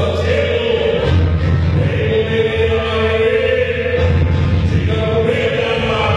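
Loud dance music played over a sonidero sound system in a hall, with a heavy pulsing bass line.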